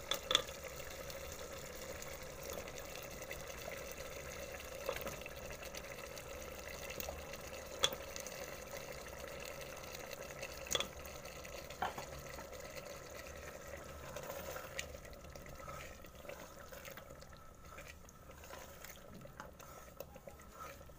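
Thick tomato-onion masala bubbling and sizzling in a pressure cooker as taro pieces are stirred through it with a wooden spoon. The spoon knocks sharply against the pot a few times. The sound grows quieter toward the end.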